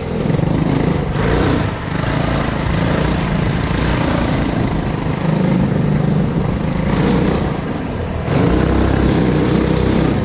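Two Tillotson single-cylinder go-kart engines with Stage 1 performance kits, headers and mufflers, running under load as the kart drives over dirt and grass. Engine speed rises and falls, and the sound gets louder about eight seconds in.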